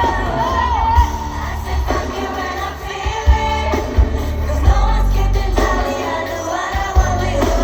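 K-pop song with female singing over heavy bass and drum hits, played through a stadium PA system during a concert sound check.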